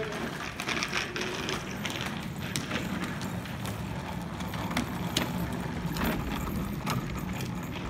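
Hard plastic wheels of a pushed ride-on toy car rolling over asphalt: a steady low rumble with scattered clicks and rattles.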